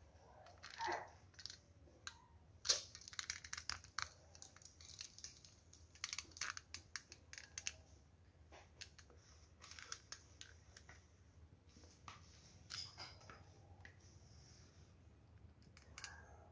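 Spatula scraping thick cake batter out of a mixing bowl into aluminium cake tins: faint, scattered scrapes, taps and clicks.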